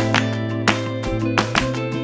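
Background music: plucked notes over a held low bass note.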